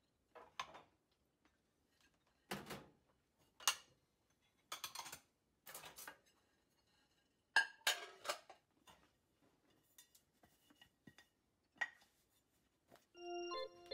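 Dishes and cutting boards clinking and knocking against each other and the stainless-steel dish drainer as they are lifted out one by one, in separate short clatters a second or so apart. Keyboard music starts near the end.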